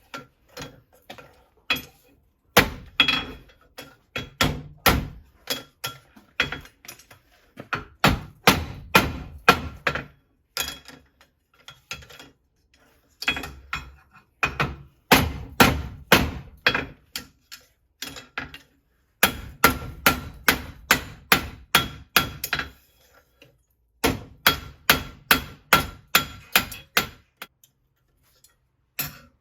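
Farrier's hammer striking metal in quick runs of ringing taps, about three or four a second, with short pauses between the runs.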